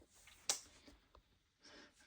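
A single sharp click about half a second in, and a much fainter tick about a second in, against otherwise near silence.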